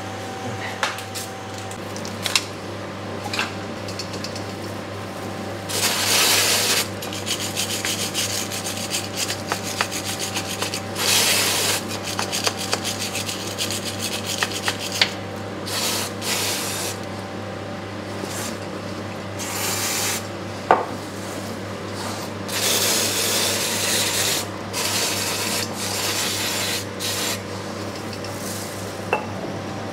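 A hand tool scraping caked, oily grime off the underside of a Toyota Land Cruiser 40's transmission case, in repeated strokes of about a second or two with short pauses and a few sharp clicks between. A steady hum runs underneath.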